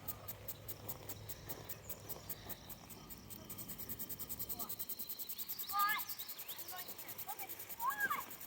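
Insects chirping in a steady, high-pitched pulsing rhythm that speeds up about three and a half seconds in. Two short warbling calls break through, one about six seconds in and one near the end.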